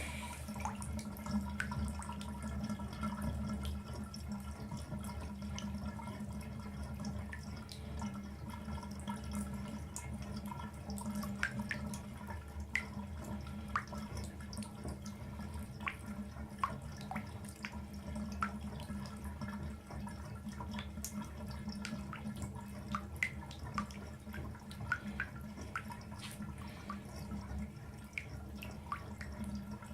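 Water dripping in irregular, separate drips over a steady low hum.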